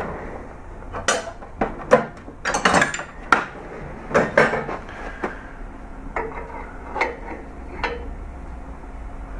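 Steel hand tools clinking and clanking, about a dozen sharp, irregular knocks, as a wrench is taken from a metal tool tray and fitted to the flats of an AR-15 muzzle brake.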